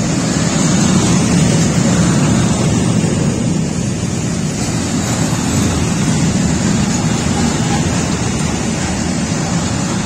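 Freight train of open-top wagons rolling past at close range: a loud, steady rumble of wheels on rails.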